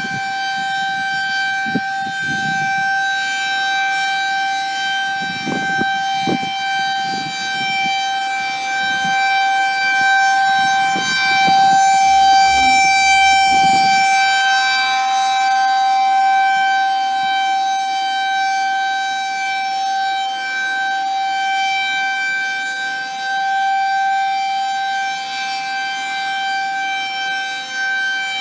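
Federal Signal 2001 rotating tornado siren sounding its monthly test: one steady, unchanging tone with a rich buzzy edge. Its loudness swells and fades slowly and peaks about halfway through.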